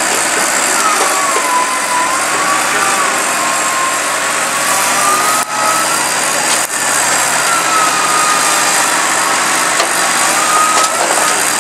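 Land Rover Discovery's engine running steadily as the 4x4 works nose-down in a steep ravine, with a whine that wavers up and down in pitch. The sound briefly cuts out twice a little past halfway.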